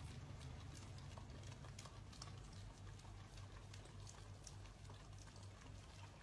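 Two dogs licking a soft-serve ice cream cone: faint, quick, irregular wet licking clicks over a low steady hum.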